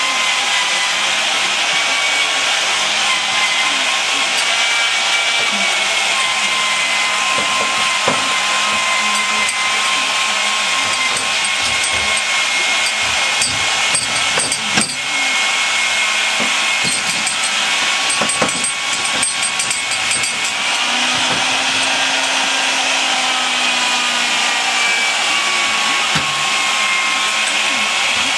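Wood lathe running steadily with a whine that wavers slowly in pitch, spinning a wooden vessel. Through the middle stretch a hollowing tool cuts into the wood, adding irregular scraping and small clicks.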